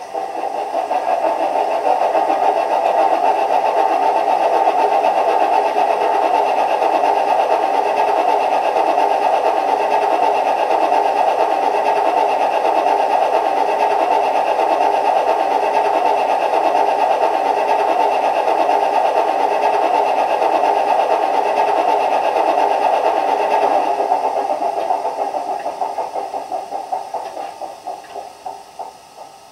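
Sound decoder in a Heljan model Class 27 diesel locomotive playing its recorded diesel engine sound through the model's small loudspeaker. The engine runs steadily, then dies away near the end in slowing, fading pulses, like an engine running down or failing to catch.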